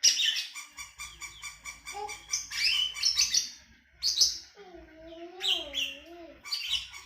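A songbird singing a rapid, varied song of chirps, trills and whistles. In the middle a lower, wavering note is held for under two seconds. The bird carries a large repertoire of mimicked calls, among them those of the sooty-headed bulbul, magpie robin, green leafbird and prinia.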